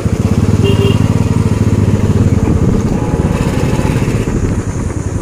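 Motorcycle engine running while riding, a steady rapid beat of firing pulses, easing off a little near the end.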